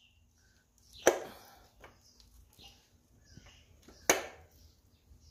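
Two sharp knocks about three seconds apart, each with a short ringing tail, with faint clicks between them, as a piston is pushed down and out through its cylinder bore in an Audi 2.0T four-cylinder engine block.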